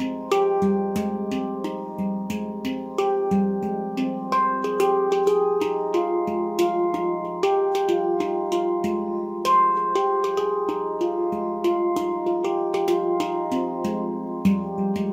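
Handpan in F low Pygmy tuning by Nimo Sounds, played by hand in a free improvisation: a steady flow of struck notes, a few a second, each ringing on into the next.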